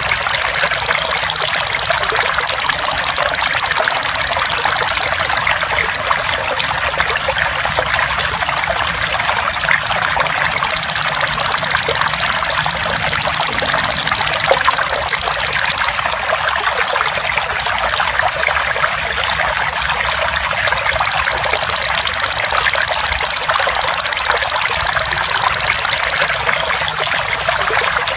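Water trickling steadily, overlaid with a belalang emas (golden grasshopper) buzzing loud and high. The buzz comes in three trills of about five seconds each, evenly spaced, with pauses between them.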